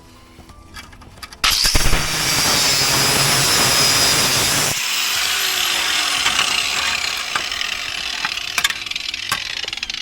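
Angle grinder cutting in suddenly about a second and a half in and grinding at a rounded, seized bolt on the car's rear hub. After about three seconds the grinding noise drops away and the motor's whine slowly falls in pitch. A few sharp clicks come near the end.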